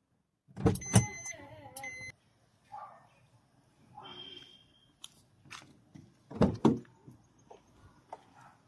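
Short electronic beeping about a second in, mixed with knocks and handling clatter; two loud knocks come later.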